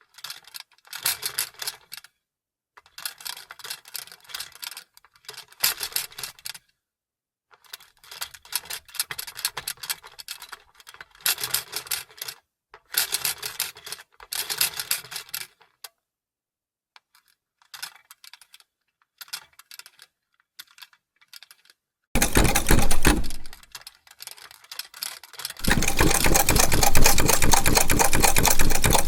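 Vintage sewing machine: for the first half, irregular bursts of clicking and rattling with pauses. Then a short run of fast stitching about three quarters in, and from near the end the machine runs steadily at speed with rapid even ticking.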